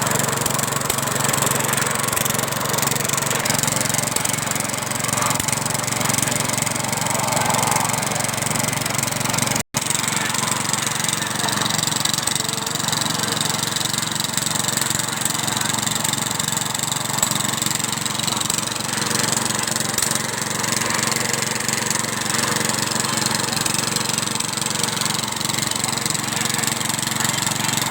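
Small boat engine running steadily, driving a coconut grater.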